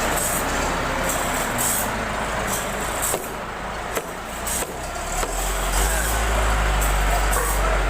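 Sawmill machinery running: a steady low engine drone under a wide rush of mechanical noise, the drone growing stronger about five seconds in.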